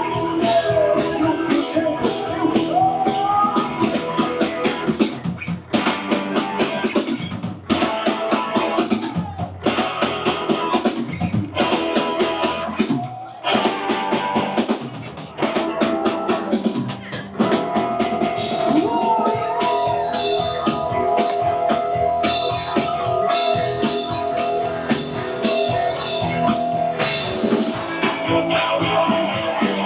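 Rock band playing live, driven by a drum kit and electric guitar, in a passage with no singing heard. Several brief drops in loudness break the playing in the first half.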